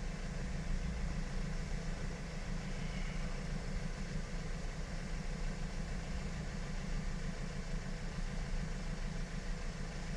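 Steady low rumble of a car engine idling, unchanging throughout.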